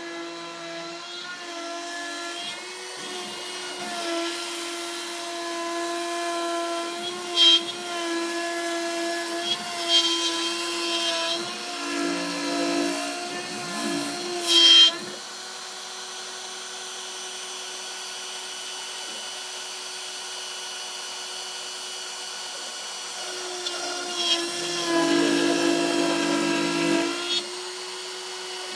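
Torchmate 2x4 CNC router's spindle running with a steady whine as its bit cuts MDF. The cutting noise is louder and rougher for the first half, with two short sharp peaks about seven and fourteen seconds in. It settles to a steadier, quieter whine for several seconds, then gets louder again near the end.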